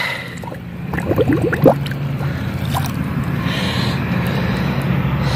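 Pond water sloshing, gurgling and dripping as it is scooped up to search for tadpoles, over a steady low hum.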